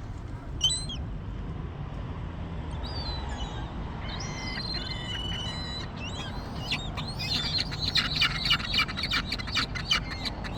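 Gulls calling: scattered single cries, then a quick run of many short calls from about seven seconds in, over a steady low rumble.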